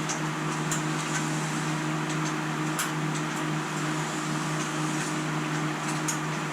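A steady mechanical hum with a low tone, with a few light clicks.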